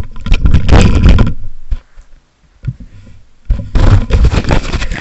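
Handling noise: rubbing and knocking on the microphone while the recording device is moved. It comes in two loud spells with a quieter gap of about two seconds in the middle.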